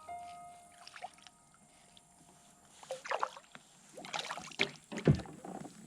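Water splashing and knocking around a small fishing boat, in several short bursts through the second half. Before that, a few lingering musical tones fade out.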